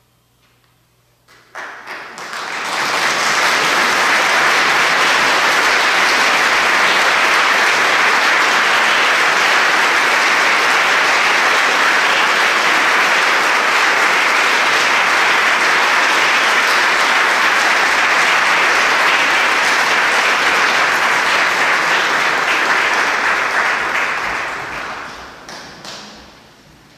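Audience applauding: the clapping starts about a second and a half in, builds quickly to a full, steady ovation, then dies away near the end.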